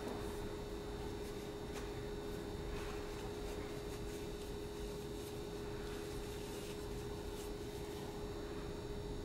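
Room tone: a steady low hum over faint hiss, with a few faint soft ticks.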